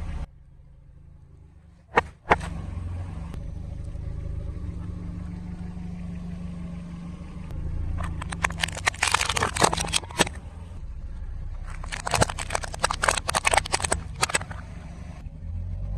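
A car's engine running low and steady, with a sharp crack about two seconds in. Two long runs of crackling and crunching follow, one about halfway through and one near the end, as the tyre crushes objects under it.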